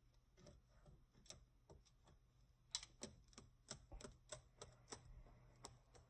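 Faint, irregular clicking of a cockatiel's claws on a plastic laptop lid as it walks, about fifteen taps, a little louder around the middle.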